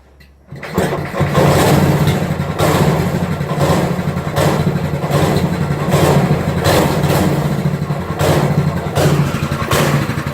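Small single-cylinder kart engine starting up about half a second in and then running loudly, with a regular pulsing about twice a second.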